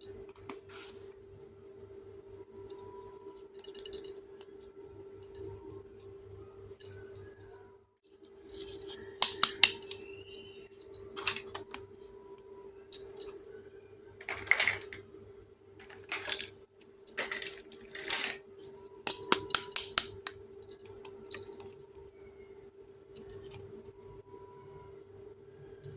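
Small toy kitchen pieces being handled and set down: scattered light clicks and clinks at irregular intervals, with a faint steady hum underneath.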